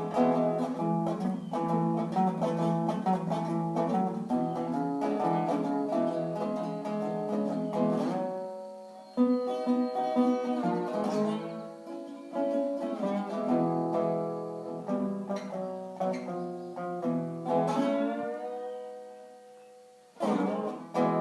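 Tricone resonator guitar playing a melody of ringing plucked notes in phrases, with a note sliding up in pitch near the end.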